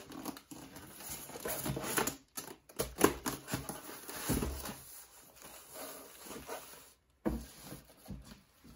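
Handling of polystyrene foam packing and a plastic-wrapped monitor as the monitor is slid out of its foam tray. Irregular rustling and rubbing with a few knocks, the sharpest about three seconds in.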